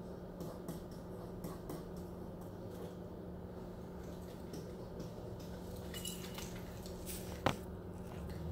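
Faint scattered taps and scratches of a pen writing on an interactive whiteboard over a steady low hum, with one sharper click near the end.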